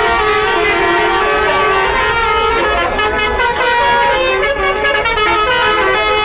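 Tour buses' multi-tone 'basuri' telolet horns playing a melody, several horn tones sounding together and stepping from note to note without a break.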